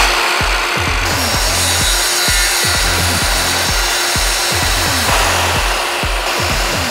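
Circular-blade power saws, a miter saw and then a table saw, cutting through wooden boards, with a background music beat underneath. The cutting noise changes abruptly about a second in and again near the end.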